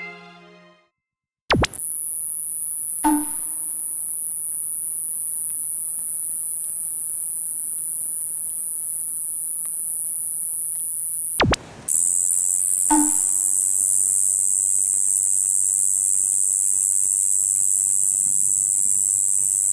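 Two katydid songs played one after the other. First a kubikirigisu (Euconocephalus varius) sings a continuous, sharp, high-pitched buzz for about ten seconds. After a brief break, a shiboirokayakiri sings a continuous buzz that sounds thicker and lower.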